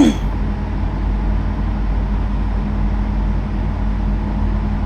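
Load bank cooling fan running steadily during its cool-down cycle, a continuous drone with a low hum. There is a short click right at the start.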